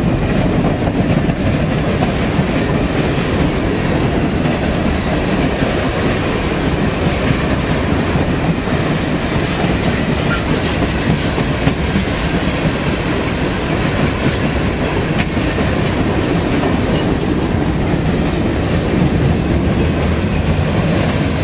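Norfolk Southern freight train's open-top hopper cars rolling past at close range, their steel wheels on the rails making a steady, unbroken rumble.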